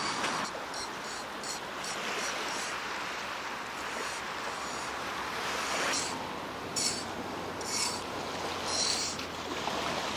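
Sand rubbing and scraping in short hissy strokes, several times in the latter half, over a steady wash of surf-like noise.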